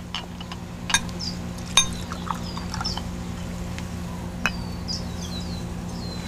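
Whiskey poured from a cat-shaped decanter into a small glass, with a few sharp clinks of the stopper and glass. Birds chirp in the second half over a steady low hum.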